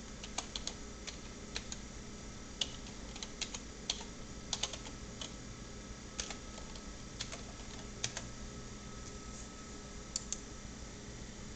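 Computer keyboard being typed on: scattered key clicks, single and in short runs, over a faint steady hum.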